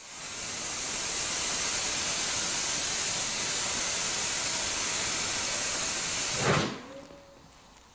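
Compressed air hissing loudly and steadily as a large off-road tire is inflated on its rim. About six and a half seconds in, the hiss is cut off by one heavy thump.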